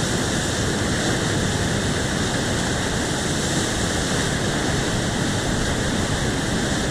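Whitewater rushing steadily: a loud, unbroken wash of churning water, even across low and high pitches.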